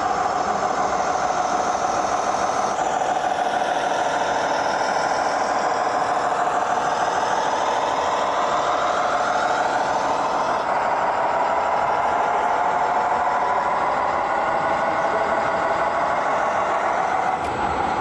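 Electronic diesel-engine sound from the sound modules of radio-controlled model trucks, running continuously with its pitch slowly rising and falling as the trucks throttle up and down.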